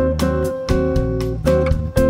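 Background music led by plucked guitar, with bass notes and a steady beat.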